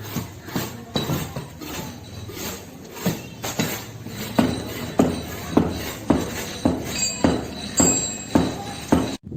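Repeated sharp knocks of a hand tool striking masonry, about two a second in a steady rhythm, with a clinking edge; the sound drops out abruptly for an instant near the end.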